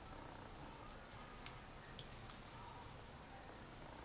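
Quiet background: a faint, steady high-pitched hiss with a few faint ticks.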